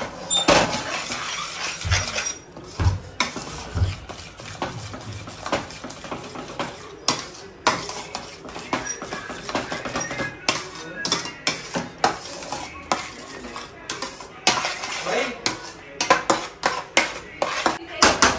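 Metal spoon stirring thick white sauce in a stainless steel pot, clinking and scraping against the pot's sides and bottom in a quick, irregular run of knocks.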